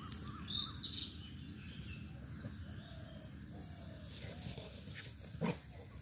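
Evening field ambience: a steady high-pitched insect drone, with a few short falling bird chirps in the first second and a single sharp knock about five and a half seconds in.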